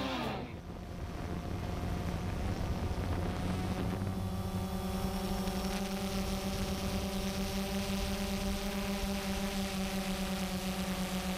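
A multirotor drone's propellers whirring with a steady, even-pitched buzz, with some wind noise. Right at the start, the preceding music cuts off with a short falling glide.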